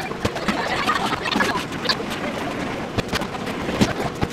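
Kitchen handling noises: scattered sharp clicks and knocks, a few of them louder, over a steady rustling background noise.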